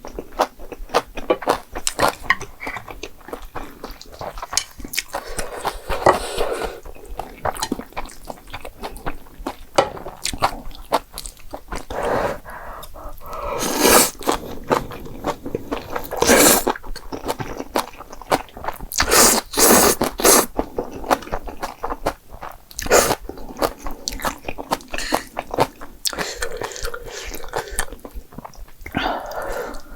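A person chewing and biting into jjapagetti noodles and spicy green onion kimchi, with many small clicks and crunches and a few louder bursts in the middle.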